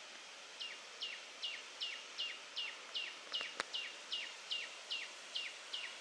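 A bird calling over and over, starting about half a second in: a short falling chirp repeated evenly, about two and a half times a second, over a steady faint hiss. A single sharp tick comes about three and a half seconds in.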